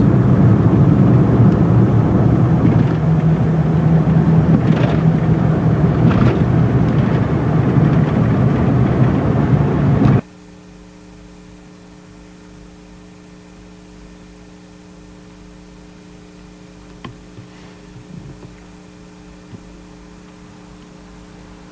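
Car engine and road noise heard from inside a moving car, steady with a low engine drone. About ten seconds in it cuts off abruptly to a quiet, steady low hum with a few faint clicks.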